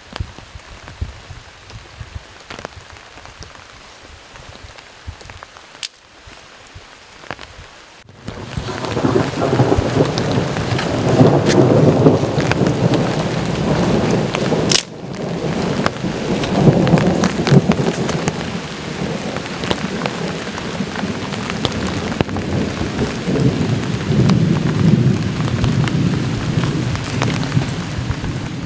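Steady rain falling, then from about a third of the way in a long, loud rolling rumble of thunder that swells and eases several times and carries on to the end.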